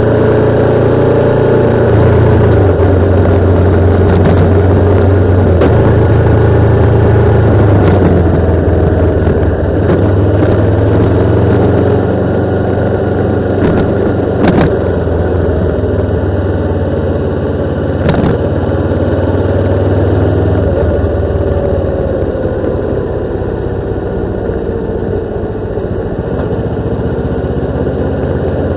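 Motorcycle engine running under way, its pitch drifting slowly up and down with the throttle. A few short sharp clicks come through along the way.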